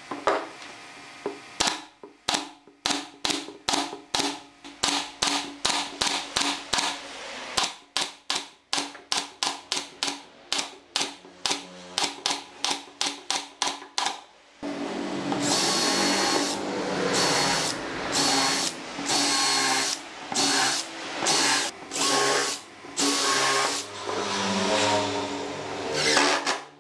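Pneumatic brad nailer firing into pine slats, one sharp shot at a time, about two a second, for the first half. After that, a cordless impact driver runs in bursts of a second or two, driving screws through the slats into the frame.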